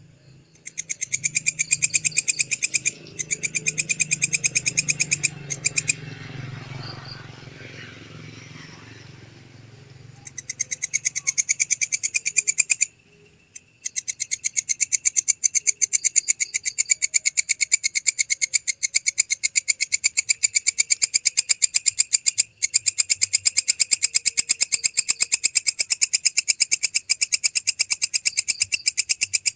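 Walang kecek bush-cricket (a katydid) stridulating: rapid trains of high, evenly pulsed ticks. They come in bursts of a few seconds with short breaks through the first half, then run on almost without a break from about fourteen seconds in. A faint low hum lies under the first ten seconds.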